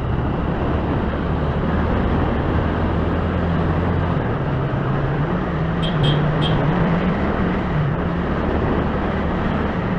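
TVS Apache RTR 200 4V's single-cylinder engine running under way, with wind and road noise. Its note climbs about four seconds in as the bike accelerates. A few short high chirps come around six seconds in.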